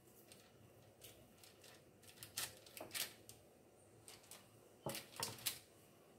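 Wooden spoon scraping and knocking against a stainless steel mixing bowl while scooping soft dough, in a few short scrapes about two seconds in and another cluster near the end.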